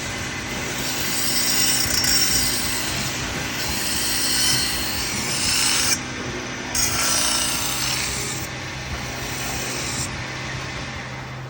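CNC metal-spinning lathe forming a 1.5 mm brass disc: the forming roller rubbing on the spinning sheet makes a rough scraping over the steady hum of the lathe's motor. The scraping dips briefly about six seconds in and eases off again near the end.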